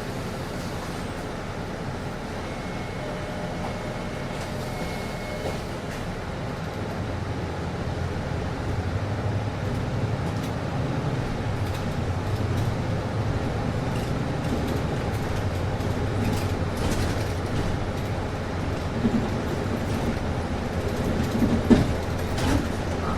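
Inside a city bus: the air conditioning blows with a steady whoosh over the low rumble of the bus running, which grows a little louder partway through. A few knocks and rattles come near the end.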